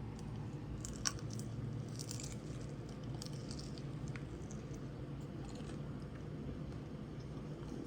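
Close-up chewing and biting of Chinese food, wet and crunchy, with a sharp crackle about a second in and a few more smaller crackles after it, over a steady low hum.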